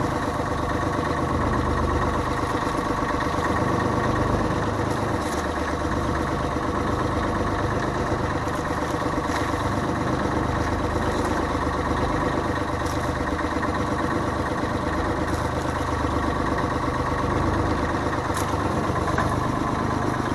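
Motorized outrigger fishing boat's engine running steadily under way, a constant unbroken drone.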